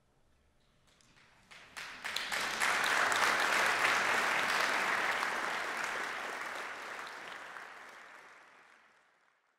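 Audience applauding: a few scattered claps about a second in, quickly swelling into full applause that then fades out toward the end.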